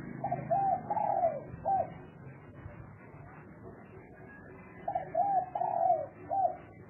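Spotted dove cooing: two phrases about three seconds apart, each of about four notes, the third note the longest and loudest.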